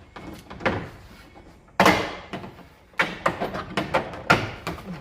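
Plastic being peeled off by hand: irregular crackling and rustling with sharp clicks and knocks, a loud burst about two seconds in and a busy run of crackles in the second half.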